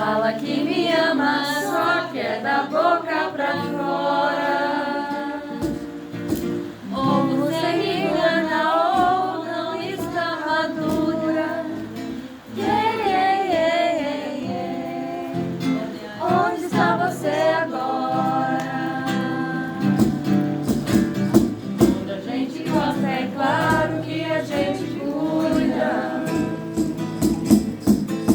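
A voice singing a song with instrumental accompaniment, the melody moving in long held and sliding notes.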